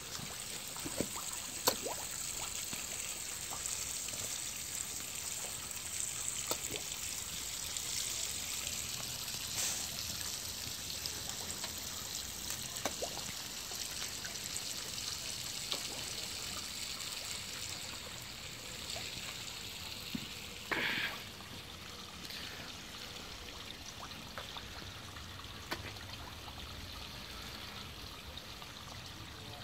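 Steady trickle of running water in a garden koi pond, with a few faint clicks and one brief louder sound about twenty-one seconds in.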